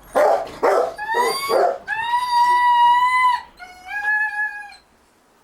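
An excited dog making a racket: a few sharp yelps, then rising yelps, then two long, high howling whines, the second a little shorter. The dog is keyed up and eager to work.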